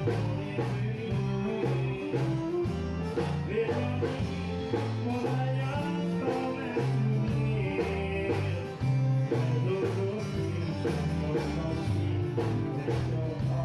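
Background music: an upbeat country-style song with guitar, a bass line and a steady beat.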